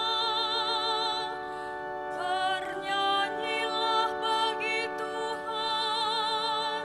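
Slow, gentle music: a sung melody with wide vibrato over steadily held chords.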